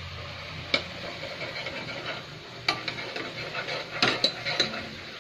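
A few light clicks and clinks of metal against a stainless steel tray, about five in all, over a steady hiss.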